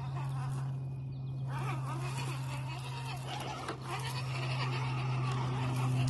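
Two 1/10-scale RC rock crawlers, an Axial SCX10 II Deadbolt and an Injora SCX10 II clone, crawling over rock: their electric motors and geared drivetrains whine under a steady low hum, the whine wavering up and down in pitch with the throttle from about a second and a half in.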